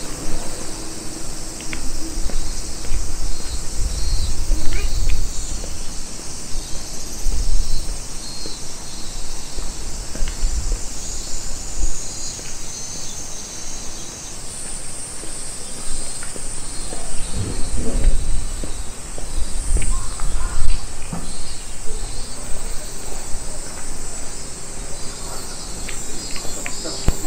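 Insects chirring steadily in a high band, with a few low rumbles rising and falling now and then.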